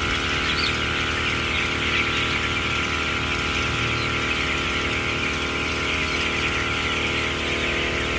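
Dense, continuous peeping of a large flock of broiler chicks over a steady mechanical hum.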